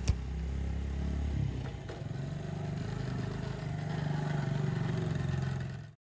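Honda ATC 70 three-wheeler's small single-cylinder four-stroke engine running as it is ridden across grass, its pitch shifting about a second and a half in. A short click sounds at the very start.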